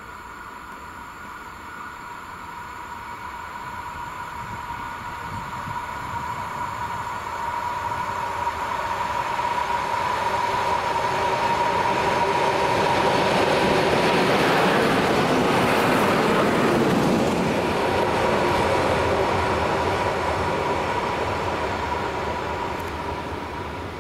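An EN57 electric multiple unit approaching and passing on the track, its running noise growing louder to a peak a little past halfway and then fading away. A steady high hum runs under it throughout.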